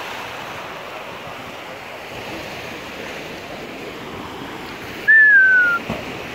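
Steady rush of fast-flowing canal water with some wind on the microphone. About five seconds in, a short high whistle falling slightly in pitch, the loudest sound, then a small splash as the thrown fishing magnet lands in the water.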